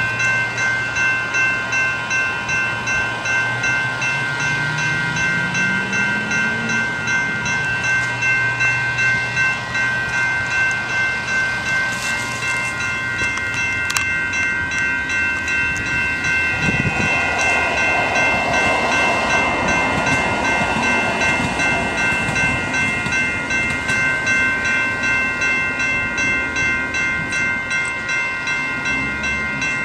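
Railroad crossing warning bells ringing in a steady, even pulse, with a train going through the crossing. A low hum and a whine rising in pitch a few seconds in, then louder rolling wheel-on-rail noise from a little past halfway.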